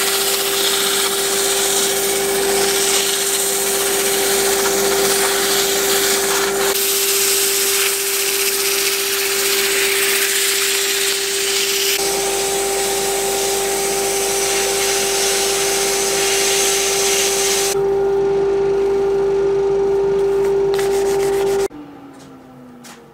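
Wood lathe running with a steady motor hum while sandpaper held against the spinning wooden workpiece gives a loud, steady hiss. About 22 seconds in, the lathe is switched off and winds down, its hum falling in pitch.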